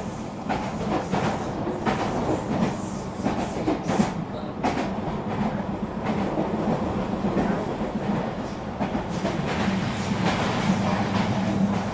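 HO scale model freight train running on the layout: a steady hum with scattered clicks from the wheels on the track.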